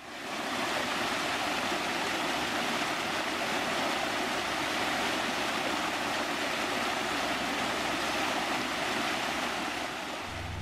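Steady rushing noise like running water, fading in at the start and holding even. Near the end a low, steady musical drone comes in.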